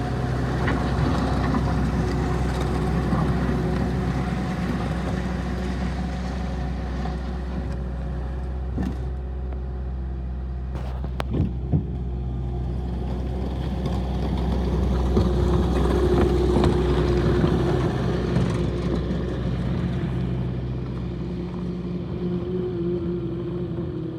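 Bobcat T770 skid steer loader's diesel engine running, swelling in level and easing back twice, with a few sharp clanks about nine and twelve seconds in and a higher steady tone coming in over the engine near the middle and again near the end.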